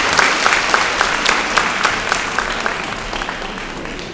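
Audience applauding, many hands clapping together; the clapping thins out and fades toward the end.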